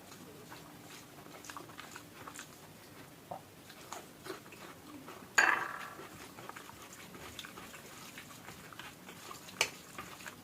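A person eating: chewing and small wet mouth clicks, with one much louder sharp sound about five seconds in and another sharp click near the end.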